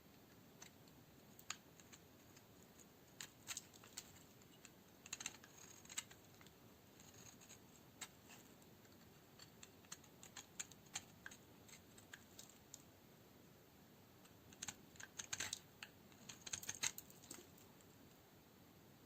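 Knife cutting dry Duru coniferous bar soap into cubes: scattered crisp clicks and crackles as the blade cracks through the dry soap, in two busier clusters, a few seconds in and near the end.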